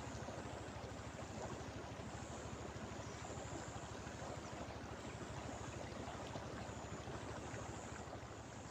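Steady rushing of river water flowing through a channel, a constant even noise with no breaks.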